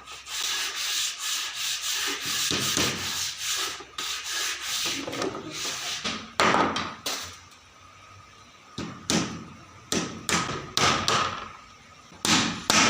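Wood being sanded by hand, abrasive rubbing strokes across the surface: a dense run of quick strokes at first, then separate strokes about once a second in the second half.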